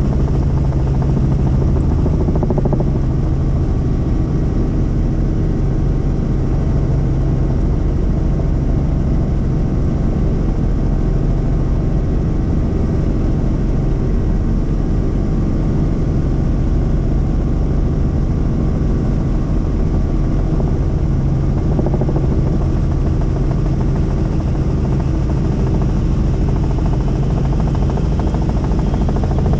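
Helicopter in flight, heard from inside the cabin: a steady, loud drone of engine and rotor with a constant low hum.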